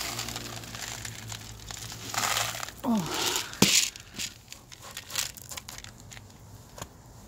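Handling noise from a plastic tray of dry cat food: crinkling and the rattle of kibble shifting, with scattered small clicks. There is a brief falling squeak near three seconds in and a sharp knock just after it, the loudest sound.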